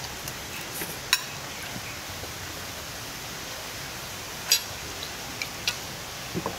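Cutlery clicking now and then against plates and a glass at a meal, a few sharp clinks with the loudest about a second in and again past the middle, over a steady background hiss.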